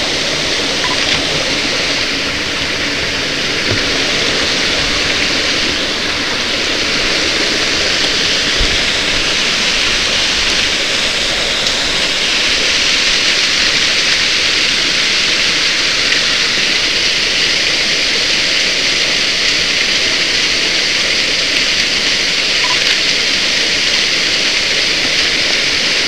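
Waterfall pouring into its plunge pool: a steady, even rush of falling water.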